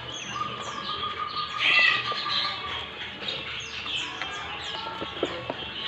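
Many small birds chirping and twittering at once, with quick, high, overlapping calls throughout. A held whistle-like note runs through the first half, and there is a louder burst of calls about two seconds in.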